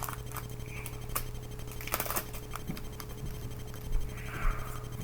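An opened Pokémon booster pack being handled: scattered small crinkles, scratches and clicks of the foil wrapper and cards as they are pulled out, over a steady low hum.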